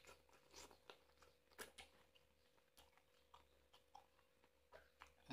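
Faint mouth sounds of someone eating boiled noodles: scattered short wet clicks of slurping and chewing, over a faint steady hum.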